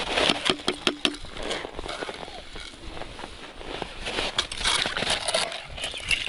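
Gloved hands pulling fishing line up through an ice hole by hand after a bite on a tip-up, with gloves and jacket rustling and snow crunching under the kneeling fisherman. A cluster of sharp clicks comes in the first second.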